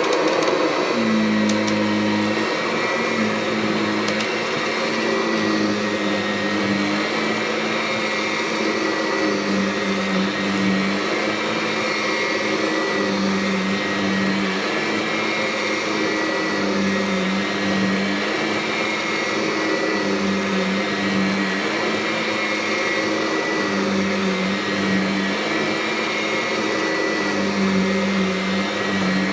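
Kirby Sentria upright vacuum running on carpet: a steady motor drone with a high whine, and a lower hum that swells and fades every few seconds.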